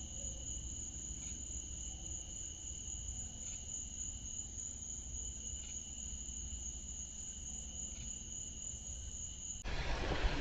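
Insects trilling steadily at two high pitches, picked up by a Reolink doorbell camera's microphone, with faint ticks about every two seconds. Near the end it cuts abruptly to a louder rushing noise.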